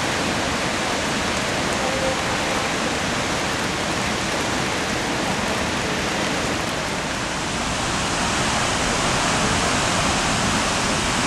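Steady rush of Akaka Falls, a tall waterfall plunging into a forested gorge, growing a little louder about two-thirds of the way through.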